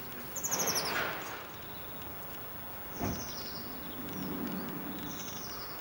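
A small songbird gives short, rapid runs of high twittering notes three times. There is a single knock about three seconds in.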